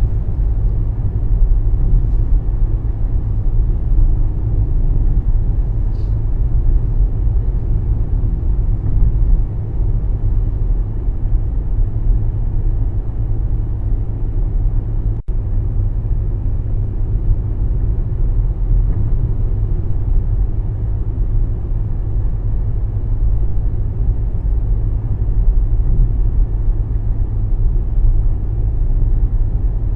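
Steady low road and engine rumble inside a moving car's cabin while driving.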